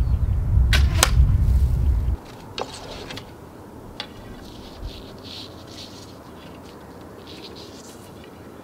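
A loud low rumble with two sharp clicks, cutting off abruptly about two seconds in. Then a quiet open-air background with a few faint clicks and soft rustles as an archer readies and draws a selfmade traditional bow.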